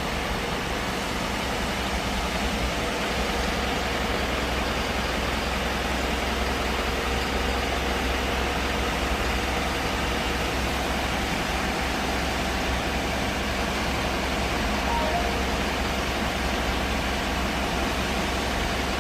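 Hyundai All New Mighty truck's diesel engine idling steadily after a remote start from a smartphone alarm.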